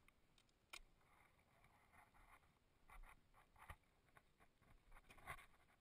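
Faint scratching and a few light clicks, barely above silence: a webbing ratchet strap being handled and drawn around a wooden beehive.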